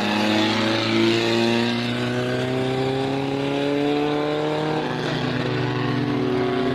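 Several car engines running at once on the speedway, their pitch climbing slowly as they accelerate, with another engine coming to the fore about five seconds in.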